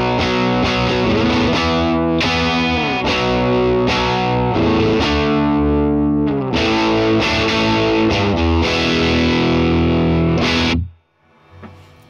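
Heavily distorted electric guitar chords and riffs played through a LoveBomb pedal preamp with its drive at 10, bias around 3, and high-pass and low-pass filters off. The playing cuts off suddenly near the end.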